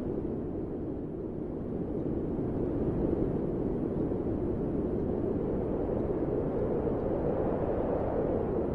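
A steady low rumbling noise, even and without any tune or voice.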